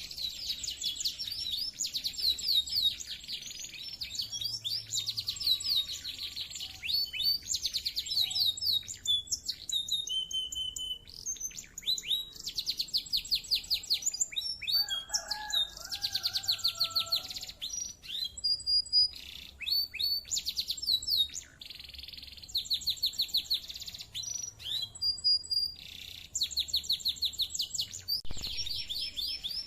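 Domestic canary singing a long, continuous song of rapid high trills and rolls, phrase after phrase with only brief pauses between them.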